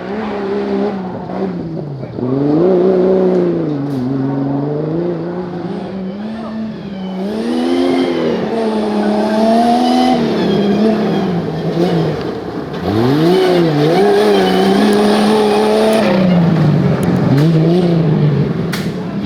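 Off-road 4x4 engine revving up and down over and over, its pitch rising and falling as the throttle is worked hard and eased.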